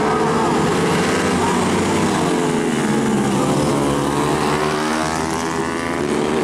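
Several tuned 150cc four-stroke supermoto motorcycle engines racing past, their revs rising and falling as the riders shift and brake, with a clear rise in pitch as they accelerate near the end.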